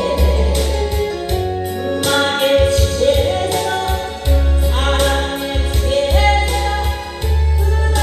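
A woman singing a Korean trot song into a microphone over a backing track with a heavy bass line and a steady beat.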